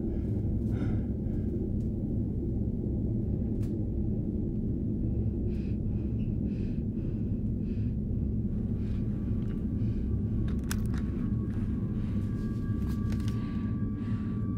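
A low, steady rumbling drone with a thin high tone that comes in about halfway through and holds.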